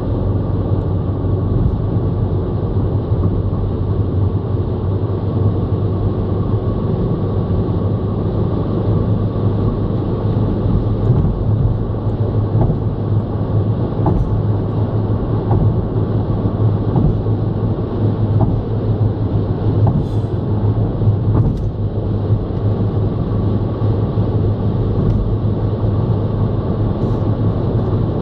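Steady in-cabin noise of a car cruising on a motorway: a low drone with road and tyre rumble, and a few faint ticks here and there.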